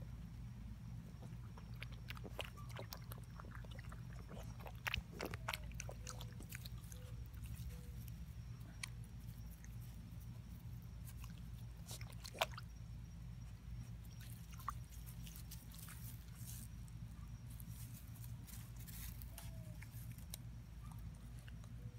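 A Portuguese Water Dog puppy chewing and mouthing at plants by the water's edge: scattered soft clicks and smacks over a steady low hum.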